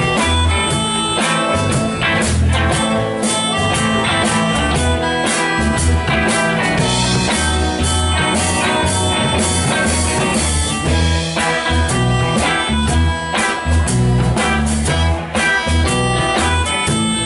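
Live blues-rock band playing an instrumental passage: electric guitars over bass guitar and drum kit, with a steady rhythmic bass pulse.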